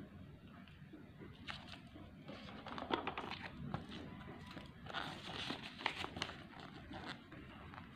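Smartphone box packaging being handled during unboxing: plastic and paper crinkling and rustling, with small irregular clicks and taps. The louder clicks come about three seconds in and again between five and six seconds in.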